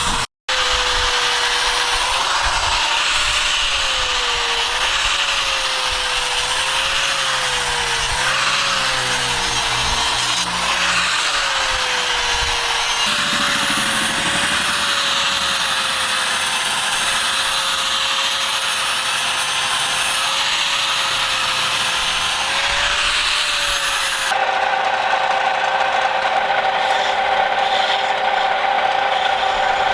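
Electric power tool running under load, its motor pitch wavering up and down as it is pressed against the work and eased off. About 24 seconds in it gives way abruptly to a steadier machine sound with a fixed pitch.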